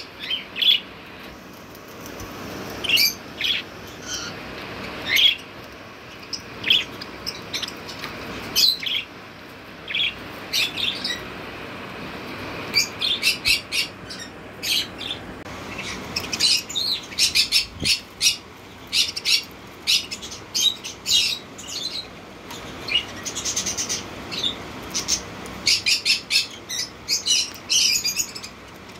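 Pet budgerigars chirping and chattering: many short, sharp chirps, scattered at first and much busier from about halfway through.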